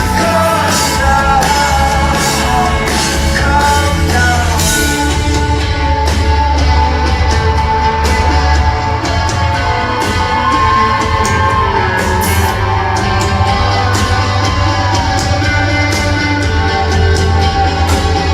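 Live rock band playing, loud, with a voice singing over heavy bass and drums, cymbal crashes cutting through, and shouts from the crowd.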